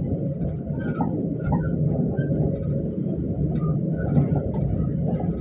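Steady low rumble of a passenger train running on the rails, heard from inside the coach.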